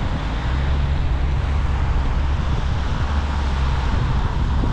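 Car driving in the rain: a steady low rumble of engine and tyres under an even hiss of wet road and wind.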